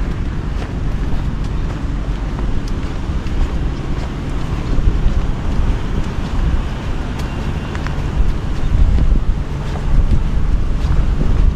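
Wind buffeting the camera microphone: a gusty low rumble that swells and eases every few seconds.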